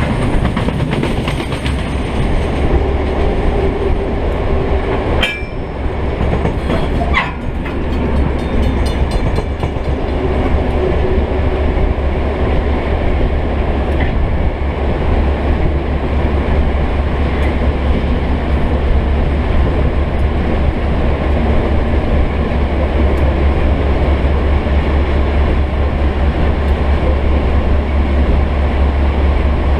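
NZR Da class (EMD G12) diesel-electric locomotive's EMD 567 two-stroke engine running steadily under power while the train is moving, heard close up from on board, with wheel and rail noise. A few sharp clicks and short squeaks come about five to seven seconds in.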